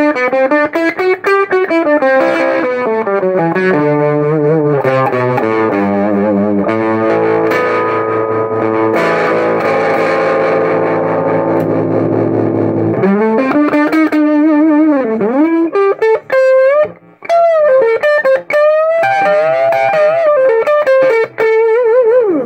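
Gibson Les Paul Traditional electric guitar played through a recapped KNOX Trem-tone tube combo amp: lead lines with string bends and vibrato, with a stretch of held chords in the middle.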